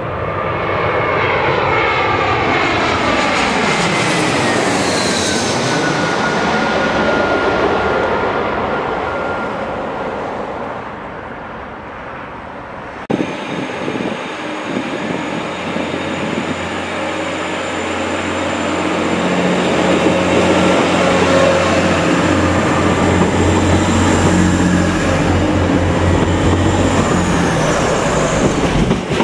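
A twin-jet airliner on final approach passes low overhead, its engine whine falling in pitch as it goes by. Then, after a cut, a First TransPennine Express Class 185 diesel multiple unit runs past a platform. Its diesel engines hum steadily and grow louder as it nears, with a thin high whine that drops in pitch near the end.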